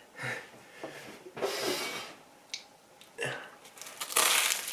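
Close-up eating sounds: a mouthful of chicken cheesesteak sandwich being chewed, with two longer noisy bursts, one about a second and a half in and one near the end.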